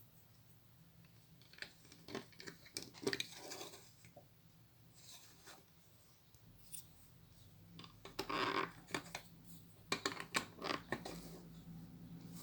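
Lego pieces being handled: a series of small plastic clicks and rattles, with a rustle about eight seconds in and more clicks just after.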